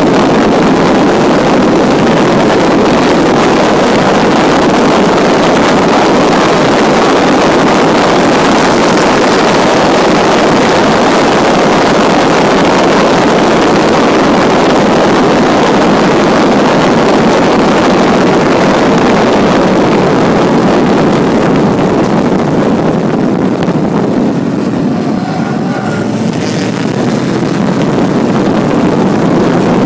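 1952 Jaguar XK120's 3.4-litre straight-six running hard at racing speed, mixed with heavy wind rush on the microphone. A little over 20 seconds in the sound eases off as the car slows for a corner, then builds again near the end.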